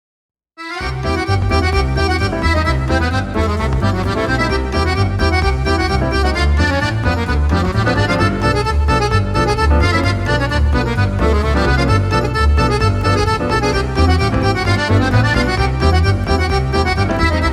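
Background music with a strong, pulsing bass, starting abruptly about half a second in.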